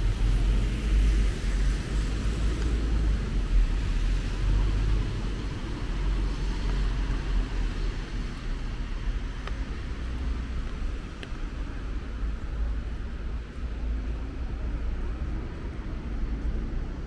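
City traffic on rain-wet streets: a steady low rumble with a hiss over it, somewhat heavier in the first five seconds.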